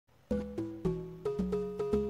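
Background music: a bouncy tune of short, sharp pitched notes, about three or four a second, starting about a third of a second in.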